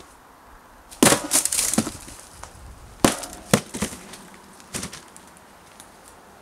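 Welded sheet-steel axe smashing into stacked cardboard boxes. A loud crash comes about a second in, with crumpling and clattering after it, then two more sharp hits around three seconds in and a softer knock near five seconds.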